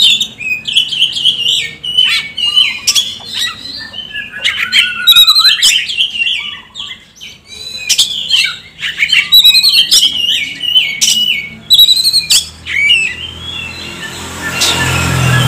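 Oriental magpie-robin (kacer) singing a fast, varied song of sliding whistles, chirps and sharp clicking notes. A low rushing noise rises near the end.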